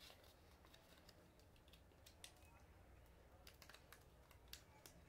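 Faint scattered clicks and rustles of a small sheet of paper being folded and creased by hand, over near-silent room tone.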